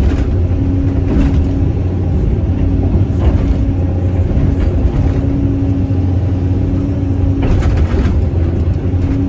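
Caterpillar 320C excavator's diesel engine running steadily under load, heard from the operator's cab, with a hydraulic whine that comes and goes as the boom and bucket are worked. A few brief rushes of noise sound as the bucket digs.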